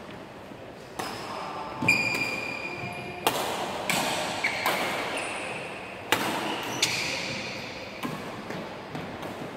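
Badminton rally: sharp racket strikes on the shuttlecock roughly every second, mixed with short high squeaks of court shoes on the wooden floor, echoing in a large sports hall.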